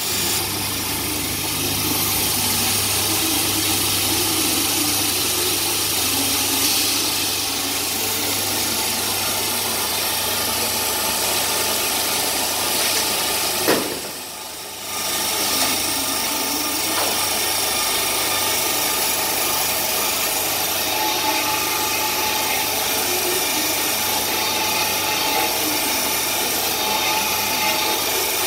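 Automatic band saw log-cutting machine running and slicing a toilet paper log into maxi rolls: a steady mechanical sawing noise over a low hum. The level dips for about a second halfway through.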